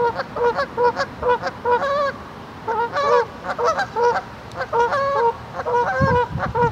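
Geese honking repeatedly, short calls coming in quick runs of several a second.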